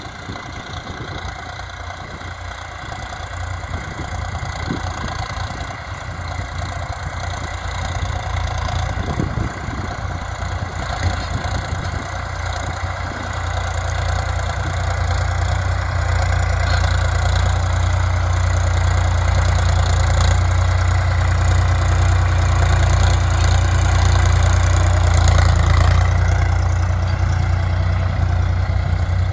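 VST Shakti Viraaj XT 9045 DI tractor's 45 hp diesel engine running steadily under load as it pulls a tine cultivator through the soil. The sound grows louder over the second half.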